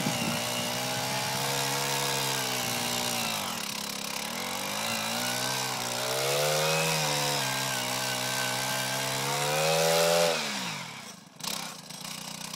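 Gas-powered one-man earth auger drilling a post hole in soil. Its small engine runs at high revs, sagging and picking up again as the bit takes load, then its speed falls away sharply about ten seconds in.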